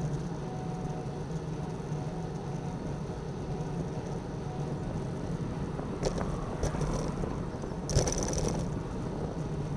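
Bicycle riding along a tarmac road, heard from a handlebar camera: steady tyre rumble and wind on the microphone. A few light rattles come around six and seven seconds in. A sharper jolt and rattle, the loudest moment, comes about eight seconds in as the wheels roll onto a rough red-surfaced bus stop patch.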